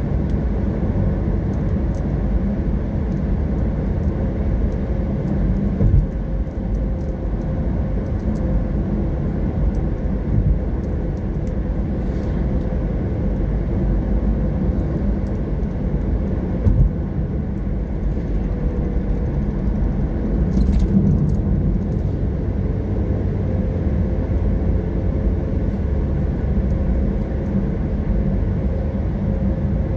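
Steady road noise of a car driving at speed: low engine and tyre rumble with a faint steady hum, and a few brief thumps from the road.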